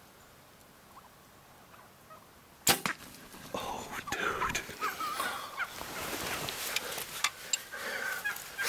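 A single sharp crack of a bow shot about two and a half seconds in, then a flock of wild turkeys stirring and calling in short, excited notes.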